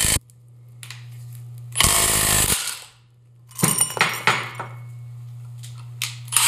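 Cordless impact wrench hammering in short bursts on the screw of a C-frame ball joint press, seating a ball joint in a Super Duty Dana 60 steering knuckle. The first burst cuts off just after the start, a second runs for under a second about two seconds in, and a third starts at the very end. In between, about three and a half seconds in, comes a quick clatter of sharp metal knocks.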